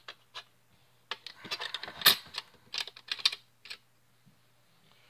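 Small clicks and scrapes from hands handling a metal bonding jig and the belt end clamped in it. There is a quick run of clicks, loudest about two seconds in, and they stop about four seconds in.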